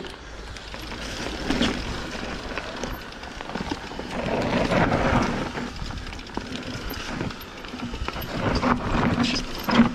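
Mountain bike riding along a dirt trail: steady rolling noise from the tyres on the ground, with knocks and rattles from the bike over rough spots, getting louder about halfway through and again near the end.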